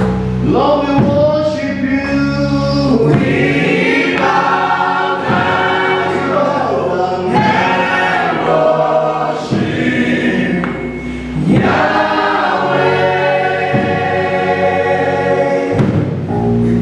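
Church choir of men and women singing a gospel song through microphones.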